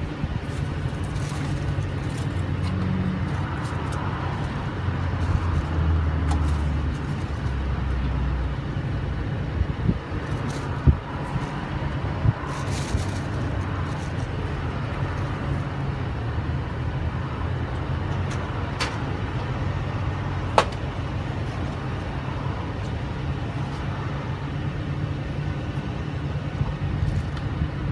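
Steady low hum of a parked vehicle's engine idling, with a few sharp knocks now and then.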